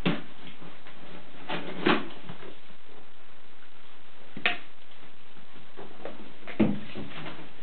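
Mongolian gerbils scrabbling and scuffling in wood-shaving bedding: a few short, sharp rustling bursts over a steady hiss.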